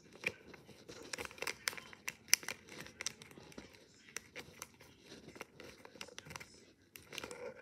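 A sheet of origami paper being folded and creased by hand, crinkling with many small irregular crackles.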